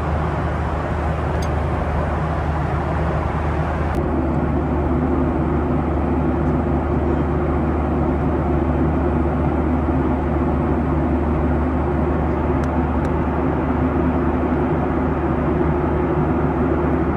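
Steady cabin noise inside a Boeing 737-800: a constant rush with a low hum. About four seconds in the sound shifts suddenly, and a steadier hum with a few held tones comes in.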